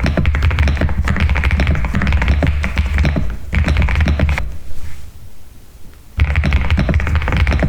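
Fast, continuous typing on an Epomaker TH99 mechanical keyboard, a dense run of key clicks that stops for about a second and a half past the middle, then resumes.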